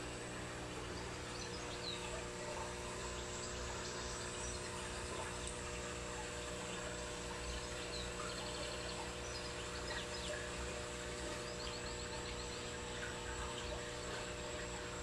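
Steady room background: a low hiss with a constant electrical hum, and a few faint high chirps, including a quick run of ticks about twelve seconds in.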